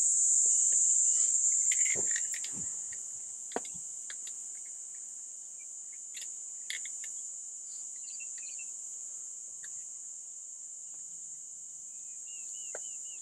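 Insects droning: a steady, high-pitched buzz, a little louder for the first two seconds, with a few faint clicks and a quick run of chirps near the end.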